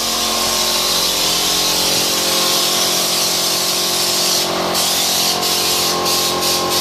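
Compressed-air spray gun spraying bedliner: a loud, steady hiss over a steady hum, broken by a few brief gaps in the second half.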